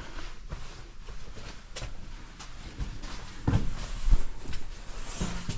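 Footsteps and scuffs of a hiker on rock and sand, with two louder thumps about three and a half and four seconds in.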